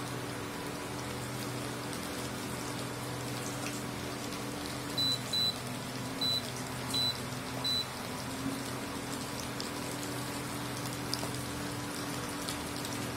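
Battered ivy gourd pieces deep-frying in hot oil in an iron kadai: a steady sizzle, over a low steady hum from the induction cooktop. About five seconds in, five short high beeps over roughly three seconds from the cooktop's touch buttons.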